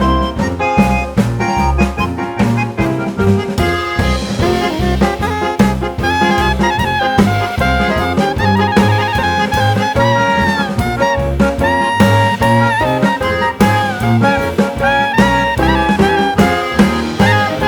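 Background jazz music with saxophone or brass lead over drums and bass at a steady beat.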